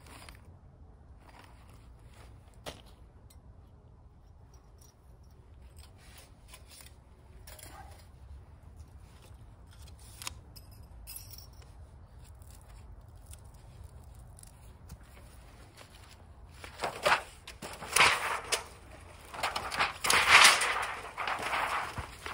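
Light metal clicks and taps as small stove pipe pieces are handled, then thin sheet metal rattling and crinkling loudly in bursts as it is flexed and unrolled, loudest near the end.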